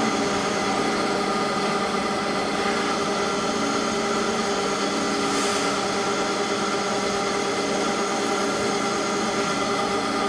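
Center-drive CNC lathe running, a steady machine hum made of several held tones, with a brief hiss about halfway through.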